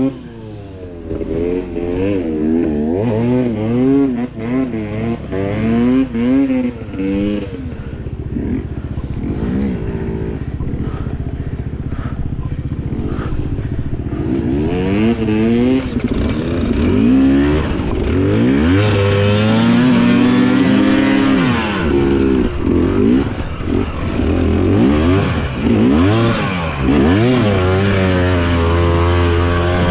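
Enduro dirt bike engine revving up and down again and again as the throttle is worked, getting louder from about two-thirds of the way in.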